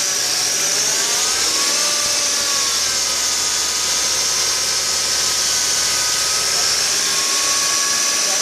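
The unexplained strange noise from a B7 Audi A4: a steady, loud, high-pitched hiss with fainter whining tones that drift slowly up and down in pitch.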